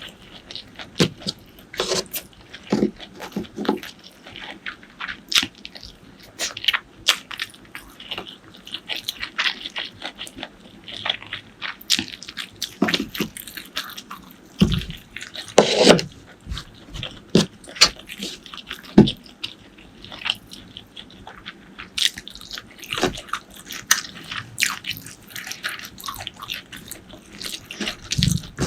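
Close-miked eating: irregular biting, chewing and crunching of food, with many short sharp clicks and mouth sounds.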